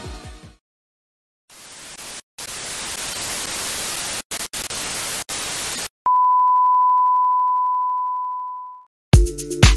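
TV static hiss that cuts out a few times, followed by a steady test tone, the kind played over broadcast colour bars, which fades away. Electronic music ends just after the start and kicks back in near the end.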